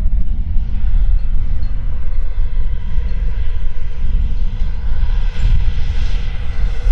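PilotRC F-16 RC jet's KingTech K86 turbine flying past, a jet whine over a heavy low rumble. The whine rises and grows louder over the last couple of seconds as the jet approaches.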